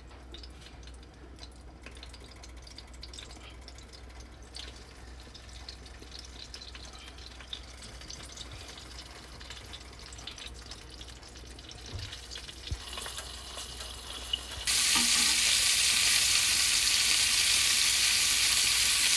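Faint kitchen handling with a few small clicks, then chicken livers frying in oil in a pan: a loud, steady sizzle that starts suddenly near the end.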